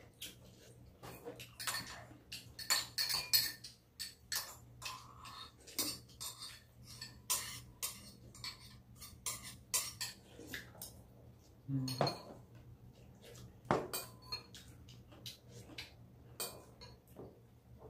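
Spoons clinking and scraping against soup bowls and dishes during a meal, in short, irregular clinks throughout.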